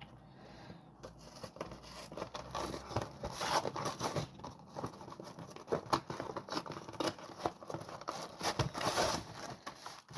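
Cardboard box of a frozen ready meal being opened by hand: tearing and crinkling of the packaging, with irregular scrapes and clicks.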